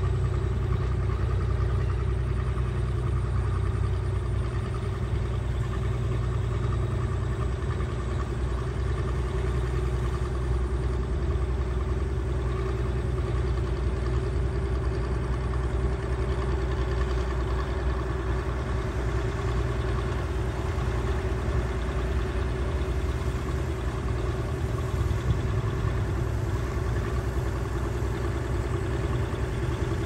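Small crawler bulldozer's diesel engine running steadily as the dozer pushes soil.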